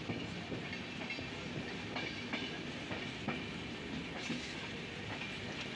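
Train wheels running on the rails, heard from aboard a moving passenger train: a steady running noise broken by a few sharp clacks about two and three seconds in.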